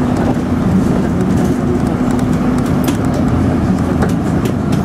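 Steady engine and road noise of a moving bus, heard from inside the cabin, with a few light clicks from the bus body.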